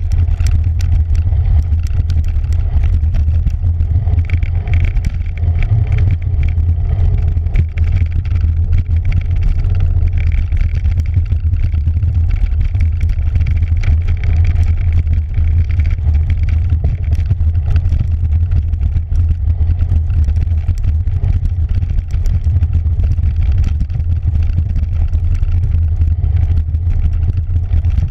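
Wind rumbling steadily on the microphone of a camera riding on a cyclocross bike, over tyre noise on a dirt trail and frequent small clicks and rattles from the bike.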